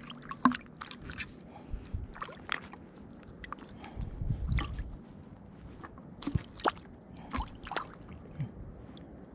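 Close water splashing and sloshing, with scattered sharp splashes and knocks, as a hooked fish thrashes at the surface and a hand reaches in to grab it.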